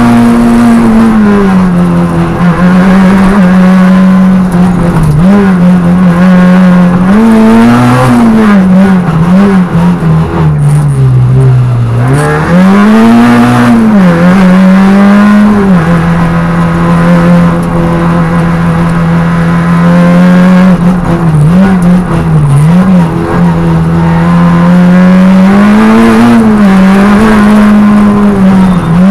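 Peugeot 106 Rallye Group A car's four-cylinder petrol engine heard from inside the cabin, driven hard on a rally stage. The engine is held at high, steady revs for long stretches, with quick blips on downshifts and a deep drop in revs around ten seconds in before it pulls hard again.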